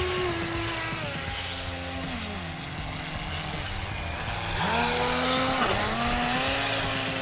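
Pro Boat 17-inch Lucas Oil RC boat's electric motor and propeller whining at speed over the water. The pitch falls in steps over the first two and a half seconds as the throttle eases, then jumps back up about four and a half seconds in as the boat powers through a turn.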